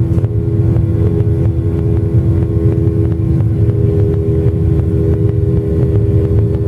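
Cabin noise of a Boeing 737-800 climbing out after takeoff, heard inside the cabin beside the wing: the CFM56-7B turbofans' steady drone, with a few steady hum tones over a low rumble of engine and airflow.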